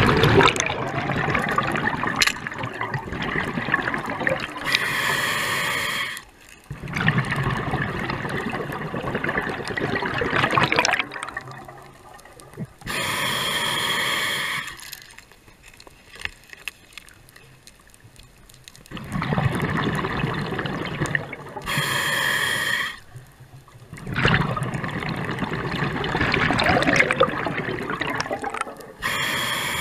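Scuba diver breathing through a regulator underwater: long bubbling exhalations alternate with short hissing inhalations, four breaths in all, with a pause of a few seconds about halfway.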